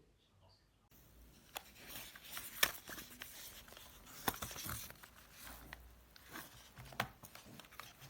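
Close handling noise: rustling and crinkling, with several sharp clicks, the loudest about two and a half seconds in.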